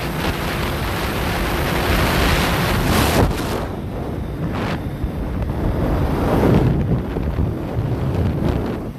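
Wind buffeting the microphone of a moving motorcycle, the rush rising and easing, with the motorcycle's engine faintly running underneath.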